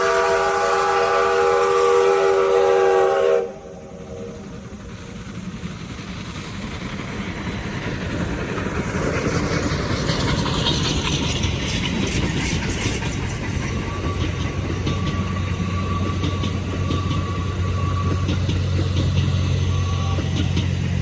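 Steam locomotive's whistle sounding a steady chord, which cuts off suddenly about three seconds in. Then the train's running noise builds, with the clatter of wheels on the rails, and a steady low hum holds through the second half.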